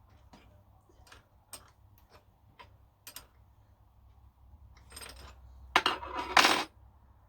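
Small metal pieces being handled: a few light, separate clicks and taps, then a louder metallic clatter about six seconds in.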